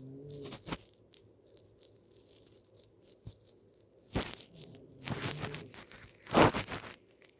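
A woman snoring in her sleep. A short droning snore comes right at the start. After a few quiet seconds a second snoring breath builds, with a short harsh burst, a droning stretch, and then the loudest, harshest snort near the end.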